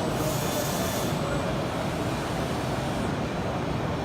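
Steady background noise of a busy machine-tool exhibition hall, with a short burst of high hiss lasting about a second near the start.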